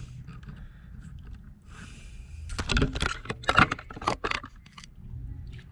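A quick run of sharp metallic clicks and clinks from hand tools and small metal parts handled while wires are fastened to an alternator's terminals, bunched together about two and a half to four and a half seconds in.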